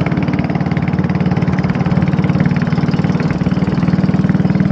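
Engine of a small wooden boat running steadily under way, a fast, even pulsing drone.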